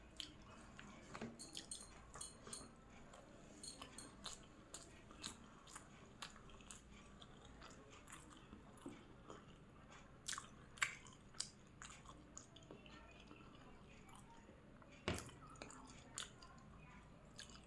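A person chewing biryani close to the microphone: soft wet mouth clicks and smacks with scattered sharper crunchy clicks. The loudest come about eleven and fifteen seconds in.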